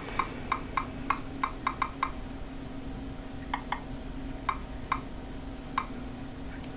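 Key clicks from typing on a Nexus 7 tablet's touchscreen keyboard. A quick run of about nine clicks comes in the first two seconds, then a few scattered taps follow, over a faint steady hum.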